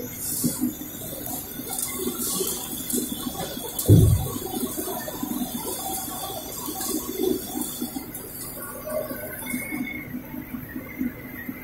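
Popcorn production line running: popped corn spilling off a chute and tumbling on a cleated inclined conveyor, a steady rush of many small ticks over the machinery. One loud thump about four seconds in.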